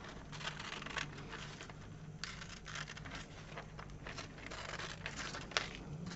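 Paper scissors snipping through paper-backed fusible web: a run of short, crisp, irregular cuts with paper crinkling between them.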